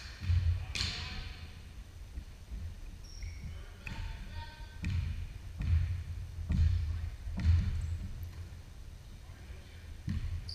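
Basketball bouncing on a hardwood gym floor, dribbled with a bounce about every second from about five seconds in, each bounce ringing briefly in the hall. A few short high squeaks, sneakers on the floor, are heard between the bounces.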